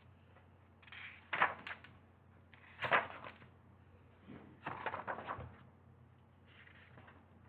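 Pages of a hardcover picture book being turned: four short rustles of paper, the book being opened and leafed through its front pages.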